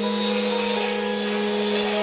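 Cordless angle grinder running steadily with an abrasive disc stripping rust and paint off a steel table-saw top: a steady whine with a high hiss.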